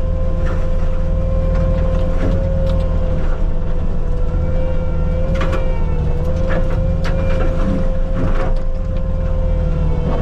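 Bobcat T750 track loader's diesel engine running under load, with its Diamond Mowers disc mulcher spinning and giving a steady whine over the engine's drone. Sharp cracks and snaps of brush hitting the disc come now and then, more of them in the second half.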